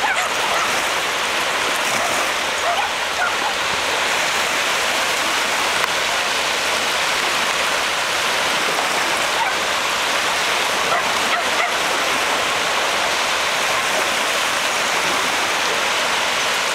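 Small waves breaking and washing onto a sandy shore, a steady hiss of surf with a few faint short calls here and there.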